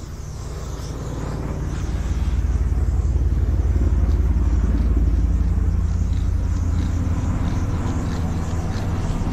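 A motor engine rumbling low and steadily, building over the first two seconds and then holding, with the hiss of a spray paint can over it.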